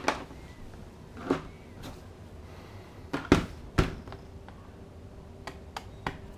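Handling of a laptop: a series of sharp plastic clicks and knocks, the loudest pair a little past the middle, lighter taps near the end.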